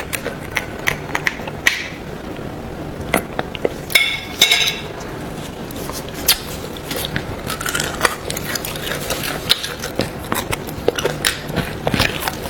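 Close-miked eating of boiled beef bone marrow: a steady run of small clicks, smacks and taps of teeth, bone and utensils, with a short high squeak about four seconds in.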